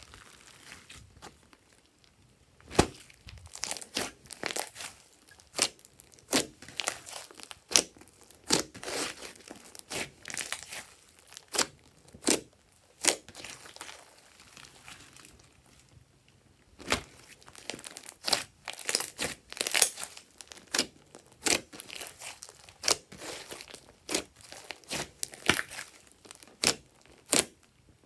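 Glossy slime being squeezed, stretched and pressed by hand. It gives irregular sticky clicks, pops and crackles, with a short quieter pause midway.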